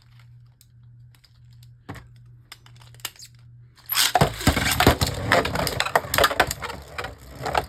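A few faint clicks, then about four seconds in two Beyblade Burst tops, Eclipse Genesis and Lord Hydrax, are launched into a plastic stadium and spin there with a dense, continuous rattling and clattering as they hit each other and the stadium walls.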